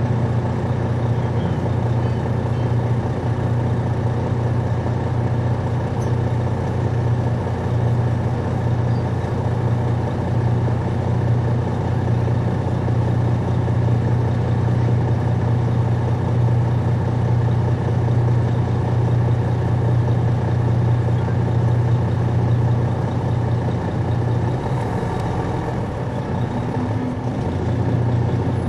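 Detroit Diesel Series 60 diesel engine of a 2001 MCI D4000 coach bus, heard from on board, running with a steady drone. About 25 seconds in the drone dips briefly, and a rising tone follows near the end.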